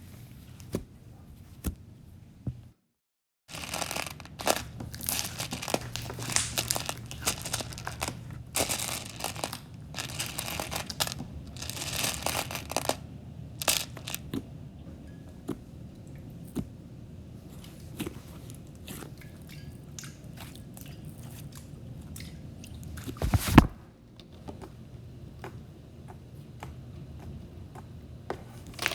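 Slime being squeezed, stretched and poked by hand, giving a dense run of small crackles, clicks and sticky pops, with one louder burst about three-quarters of the way through.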